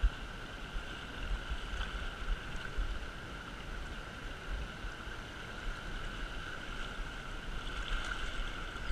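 Shallow river flowing steadily over a cobble bed, a constant rushing of water, with an uneven low rumble underneath.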